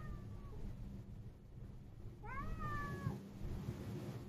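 A cat meowing: the end of one meow right at the start, then one long meow about two seconds in that rises quickly, holds and falls slightly.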